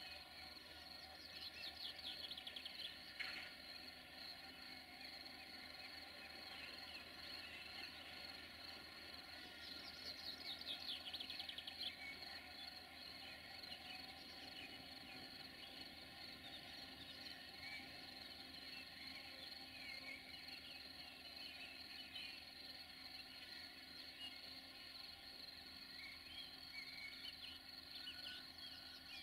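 Faint birdsong: a few short, rapid, falling trills over a steady quiet hum.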